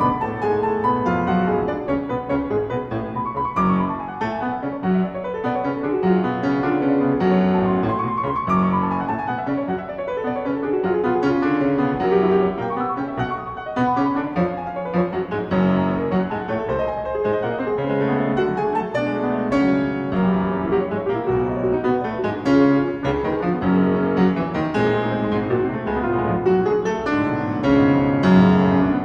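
Solo grand piano playing a busy classical passage: quick rising and falling runs over repeated low notes, without a break.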